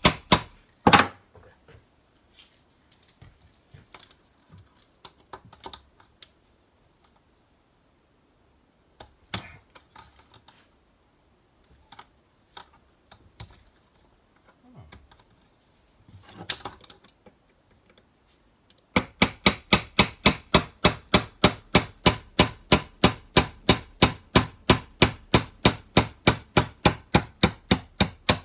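Hammer striking a pin punch to drive a roll pin out of a Ford Type 9 gearbox. A quick cluster of blows comes in the first second, then scattered light taps and clicks, and from about two-thirds of the way in a steady run of even blows, about five a second.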